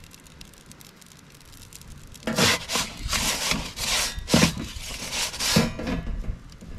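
Perforated metal pizza peel scraping across the oven's baking stone as it slides under the pizza, in a run of short rough strokes that starts about two seconds in and lasts about three and a half seconds.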